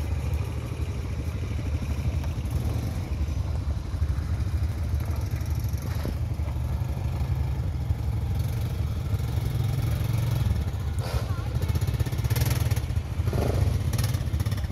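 Several quad bike (ATV) engines running as the quads ride past one after another, a steady low engine drone.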